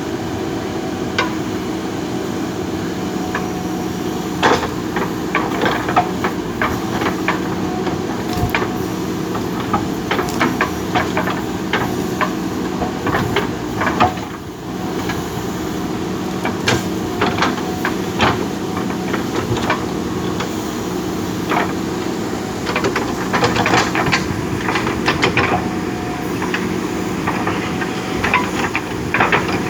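JCB backhoe loader's diesel engine running steadily, with frequent sharp clanks and knocks from the bucket working the soil, busier towards the end.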